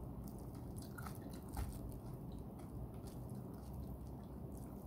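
Close-up chewing with wet mouth clicks and smacks, a person eating chicken biryani with their fingers. Many short clicks come irregularly throughout, the sharpest about a second and a half in.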